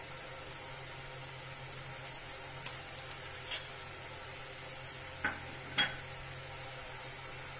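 A spoon clicking four times against a nonstick kadai, loudest twice about five to six seconds in, as tomato sauce is added and butter-fried prawns are stirred. Under it runs a faint steady sizzle from the still-hot pan, its gas already turned off.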